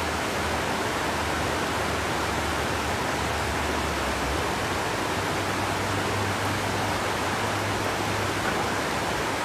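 Steady rushing of a shallow river running over stones, an even hiss with no breaks.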